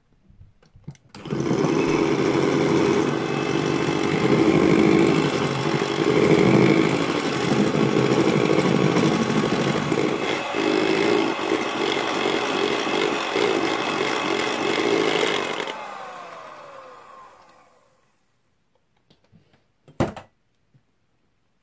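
Electric hand mixer with wire beaters running steadily, whipping cream with mascarpone in a bowl, for about fourteen seconds; then switched off, its motor winding down with a falling whine. A single short knock near the end.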